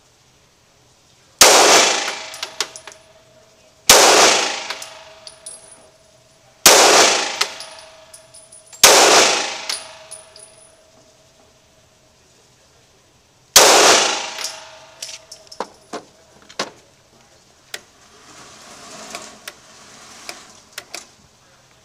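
Five handgun shots in an indoor range lane, the first four two to three seconds apart and the fifth after a longer pause, each echoing off the concrete and dying away over about a second, with small sharp clicks after. Softer clicks and a low rushing noise follow near the end.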